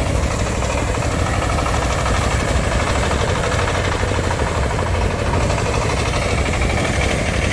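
An engine running steadily with a rapid, even knocking pulse.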